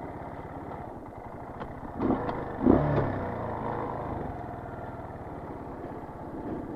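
Motorcycle engine idling with a steady, even pulsing, briefly revving up twice about two seconds in before settling back to idle.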